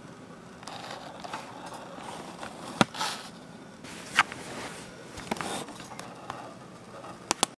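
A cat rustling paper and bedding as it moves about, with a few sharp clicks or taps, two of them loudest about three and four seconds in and a quick pair near the end.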